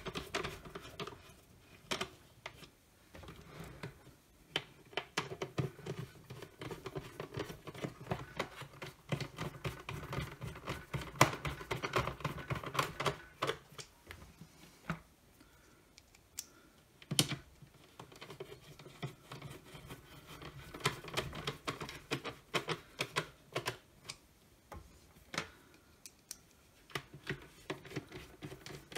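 A hand screwdriver driving screws into the plastic housing of a cordless hand vacuum, heard as runs of small rapid clicks, with a couple of sharper plastic knocks about 11 and 17 seconds in.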